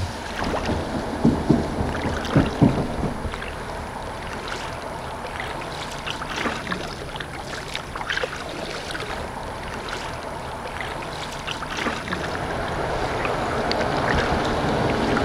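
Kayak paddling on calm water: irregular splashes and drips as paddle blades dip in and come out, with a few knocks about one to three seconds in. A low rushing grows louder over the last few seconds.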